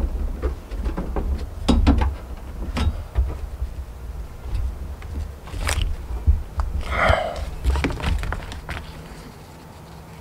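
Tie-down strap webbing and its metal buckle being threaded and pulled tight over plastic recovery tracks: irregular clicks, knocks and rattles of the buckle against the plastic, over a low rumble.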